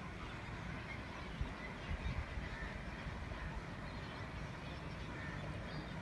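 A large flock of flamingos calling together: a dense, steady chorus of goose-like honking and chatter, over a low rumble.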